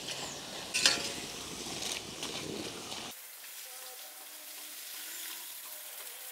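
Water spraying from a garden hose, a steady hiss with a sharp knock about a second in. About three seconds in it changes abruptly to a quieter, thinner hiss.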